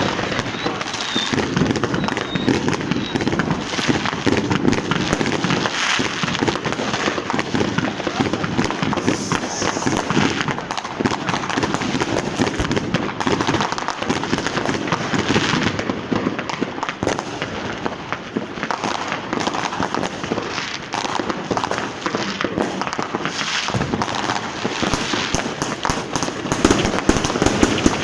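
Fireworks and firecrackers going off in a dense, continuous barrage of many overlapping bangs and crackles, with no let-up.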